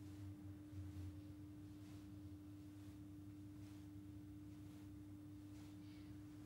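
Near silence: room tone with a faint, steady low hum and a thin steady tone.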